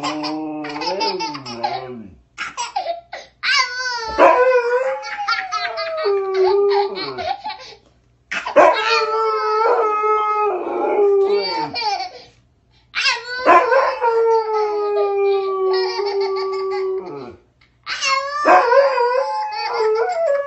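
A dog howling in long, drawn-out howls, about five bouts with short pauses between them, while a toddler laughs and squeals along.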